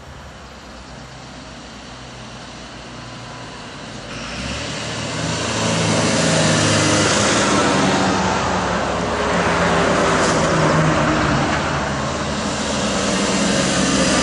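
Diesel engines and tyre noise of a convoy of wheeled military vehicles, an ATF Dingo armoured vehicle in the lead, approaching and driving past close by. The sound grows louder from about four seconds in and stays loud.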